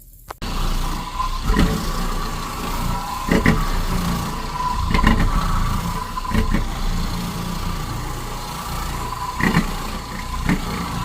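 Shark vacuum cleaner starting about half a second in, then running with a steady motor whine. Its noise surges every second or two as it is pushed over heavily soiled carpet.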